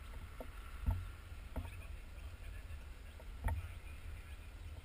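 Low buffeting rumble on the camera's microphone, with a few dull knocks, the loudest about a second in and another near three and a half seconds.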